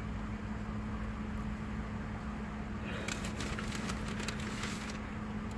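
Paper food wrapper crinkling and rustling in quick crackles for about two seconds, starting about three seconds in, over a steady low hum inside the car.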